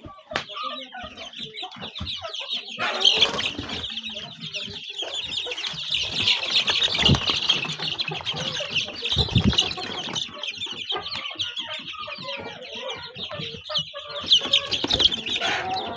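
A brooder full of chicks and young chickens peeping and clucking, a dense continuous chatter of high peeps, with two dull low thumps about halfway through.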